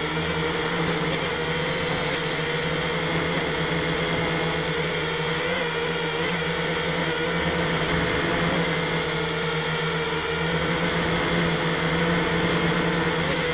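F183DH toy quadcopter's small motors and propellers whirring steadily as the drone flies, heard right up close through its own onboard camera.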